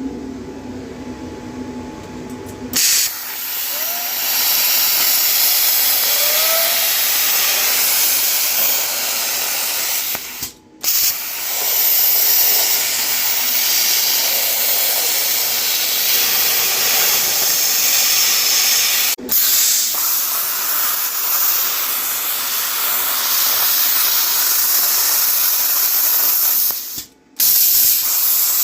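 CNC plasma cutter torch cutting quarter-inch plate: a loud, steady hiss of the arc and air jet that starts about three seconds in, after a steady hum with a few tones, and breaks off briefly three times as the arc stops and restarts.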